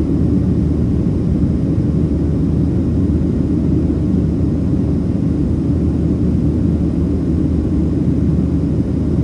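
Steady low roar of a Boeing 737-700's CFM56-7B turbofan engines and the rush of air, heard from inside the passenger cabin, with an even low hum underneath.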